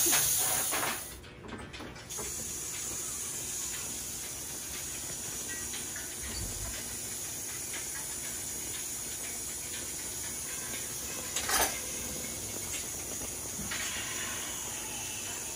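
Steady background hiss with a brief sharp click about eleven and a half seconds in.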